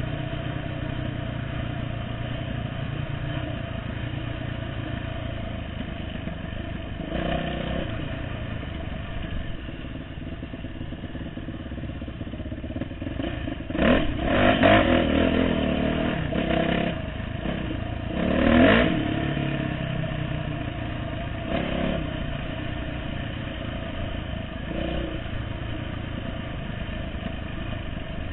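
Dirt bike engine running as the bike rides a rough trail, picked up by the bike-mounted camera. The engine surges louder about halfway through and again a few seconds later.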